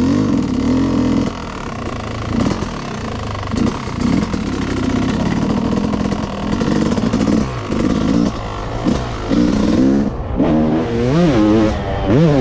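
Yamaha YZ motocross bike's engine revving up and down as it is ridden, the pitch rising and falling with each twist of the throttle, the sweeps coming quicker and sharper in the second half.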